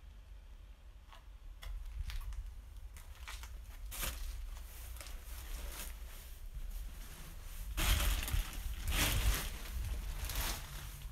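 Footsteps crunching over grit and debris on a concrete floor, with rustling of plastic and cloth; a few faint scattered clicks at first, then louder crunching and rustling from about eight seconds in.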